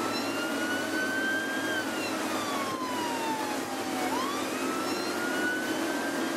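Patrol boat's siren wailing slowly up and down in pitch: rising, falling for a couple of seconds, then rising again near the end. Under it are the steady drone of boat engines at speed and rushing water.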